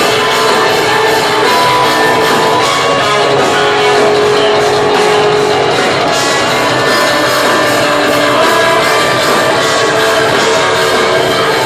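Live instrumental progressive metal: eight-string electric guitars playing a busy, continuous riff over drums, at a steady high level.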